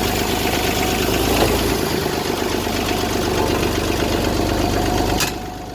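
McCormick D324 tractor's two-cylinder diesel engine running steadily. A click about five seconds in, after which the engine sound drops sharply in level.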